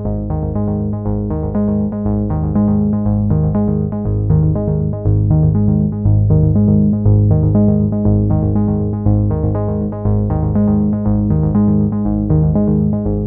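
Electronic background music: a synthesizer keyboard playing quick repeated notes over a steady bass line.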